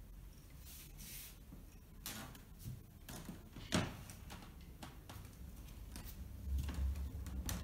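Quiet room with a few scattered clicks, knocks and brief rustles, one sharper knock about halfway through, and a low rumble coming in near the end.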